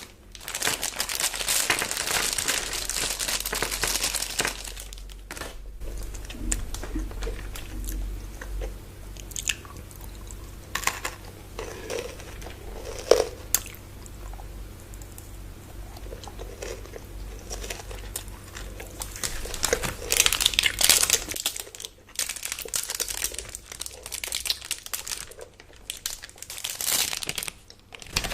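Close-miked eating of chocolate bars: crunchy bites and chewing, with wrapper crinkling at times. The loudest crunching and crinkling come near the start, about two-thirds of the way through, and near the end, with quieter chewing clicks in between.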